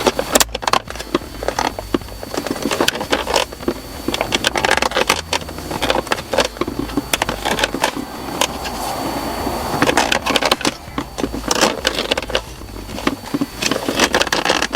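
Hands working a shifter boot and its plastic console trim back into place: irregular rustling, crackling and clicking as the material is pushed and the clips are pressed in, with a smoother stretch of rubbing about two thirds of the way through.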